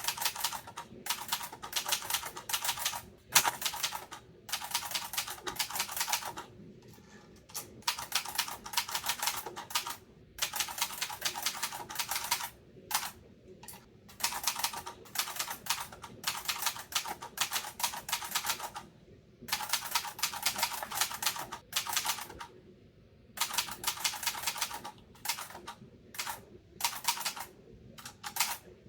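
Typewriter being typed on: quick runs of sharp key strikes, each a second or two long, broken by short pauses.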